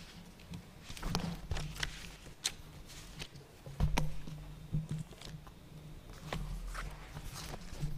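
Sheets of paper being handled as pages are read: scattered rustles, taps and small knocks, the sharpest about halfway through.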